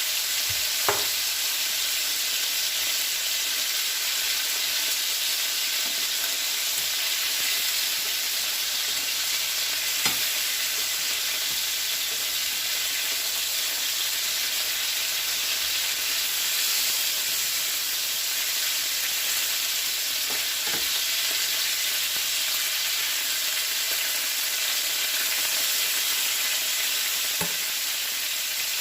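Chicken thighs sizzling and bubbling steadily in a pan as they cook in their water and rendered fat, with a few light knocks now and then.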